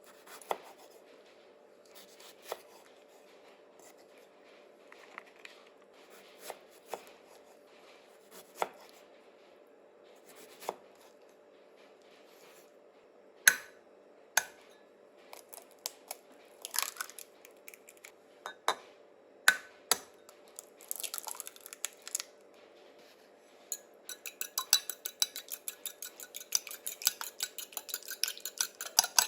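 Kitchen utensils being handled: scattered clicks and knocks of tools, bowls and dishes, with a brief scraping patch past the middle. Near the end comes a fast, regular run of ringing taps as a utensil is worked around a bowl, over a faint steady hum.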